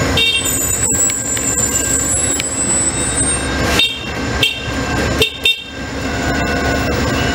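Amtrak passenger cars rolling slowly along the platform with a steady rumble and several brief high-pitched squeals. The train appears to come to a stop partway through.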